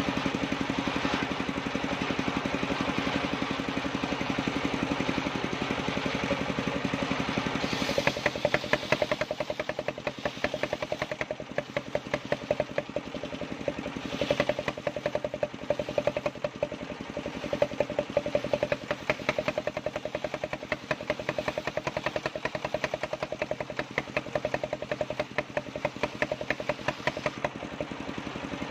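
Engine-driven homemade circular saw running with a steady drone. About eight seconds in, the sound turns rough and rapidly pulsing with sharp peaks, then settles back to the steady drone near the end.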